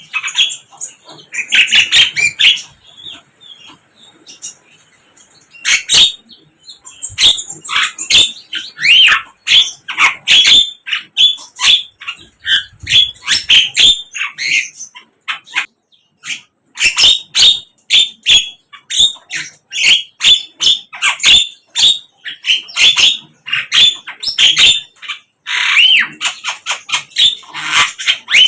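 Sikatan londo flycatcher singing: rapid runs of sharp chirps and trills in phrases, with a short pause about halfway.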